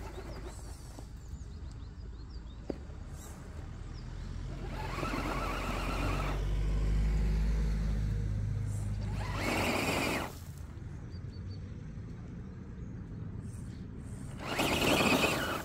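RC crawler's electric motor and drivetrain running, its tyres scrabbling in loose dirt in three short bursts about five, ten and fifteen seconds in, as the truck struggles stuck on a soft mound. A low rumble swells and fades in the middle.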